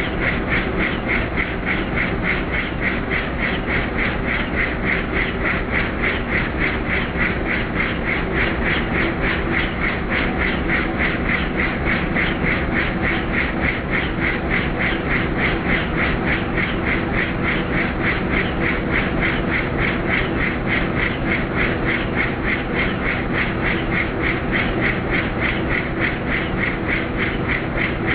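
Helicopter in flight: a steady, rapid beat of the rotor blades, several pulses a second, over the constant drone of the engine.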